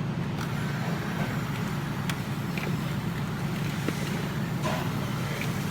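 Steady low motor hum with a few faint light clicks.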